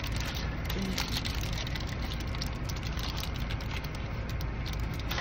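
Paper sandwich wrapper crinkling and a mouth biting and chewing a chicken biscuit: a run of small irregular clicks and rustles over a steady low hum.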